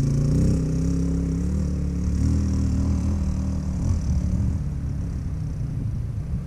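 Dirt bike engine pulling hard up a steep dirt hill, its pitch rising and dropping with throttle and gear changes, growing fainter as the bike climbs away.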